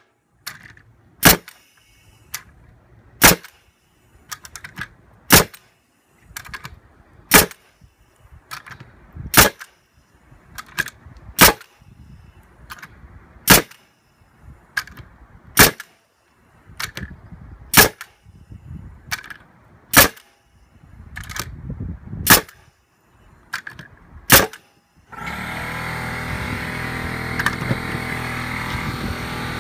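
NuMax pneumatic nailer firing nails into a wooden block: a sharp shot about every two seconds, about a dozen in all, with fainter clicks between. About 25 seconds in, the shots stop and steady background music takes over.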